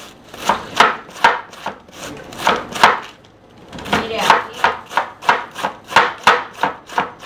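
Large kitchen knife shredding a head of green cabbage, each stroke cutting through the leaves and knocking on a wooden cutting board. The strokes come as a steady run of about two or three a second, pause briefly about three seconds in, then resume quicker, about three or four a second.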